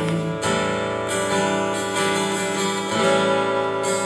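Steel-string acoustic guitar strumming chords between sung lines, changing chord a couple of times.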